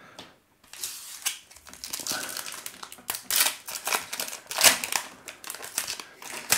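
Wrapper of a 2021 Topps Opening Day baseball card pack crinkling and rustling as it is handled and torn open, in irregular crackles beginning about a second in.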